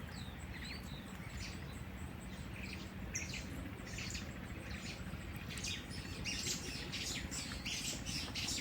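Several birds chirping, a busy mix of short high calls that grows livelier from about three seconds in.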